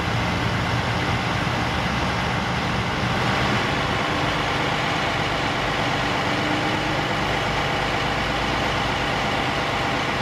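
Heavy truck engine idling steadily under a constant hiss.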